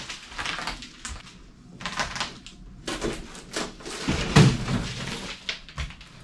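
Thin wooden ceiling boards being pried and torn down from the rafters by hand: scattered cracks, scrapes and knocks, the loudest knock a little over four seconds in.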